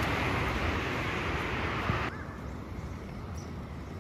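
Steady outdoor rushing noise, like wind on the microphone, that cuts off abruptly about two seconds in. It leaves a quieter outdoor background with a faint high chirp.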